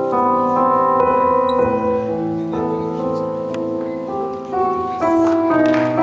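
Instrumental backing music led by piano, sustained notes shifting every second or so.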